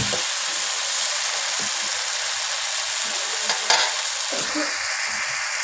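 Onion and tomato masala sizzling steadily in a kadai over a gas flame while it is turned with a perforated metal spatula. The tomatoes are being cooked down until they break apart.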